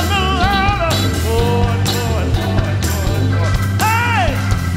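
Live soul band playing, with a male lead vocal over bass and drums; cymbal strokes keep a steady beat, and a sung phrase slides down near the end.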